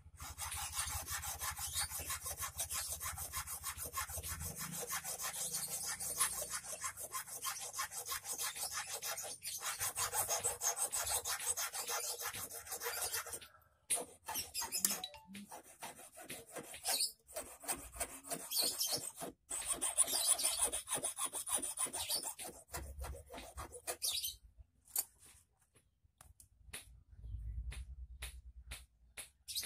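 Small hand file rasping back and forth on the metal wire tip of an eel-fishing hook held in a clamp. It runs in fast, steady strokes at first, then in shorter runs with pauses, and thins out to a few strokes near the end.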